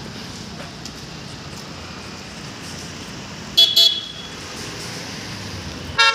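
Vehicle horns honking over a steady hum of street traffic: a quick double toot about three and a half seconds in, and another short toot at the very end.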